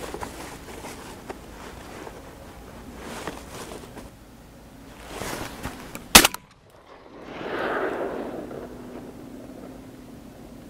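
A single loud shotgun shot about six seconds in, followed by a couple of seconds of rolling echo.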